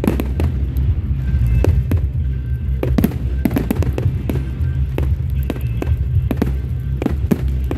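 Fireworks display going off: a quick, irregular run of bangs and crackles over a continuous low rumble, with music playing behind it.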